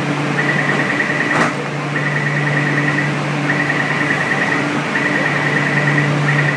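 Metro platform electronic warning tone: a high fluttering beep lasting about a second, repeating about every second and a half over a steady low hum. One sharp click comes about a second and a half in.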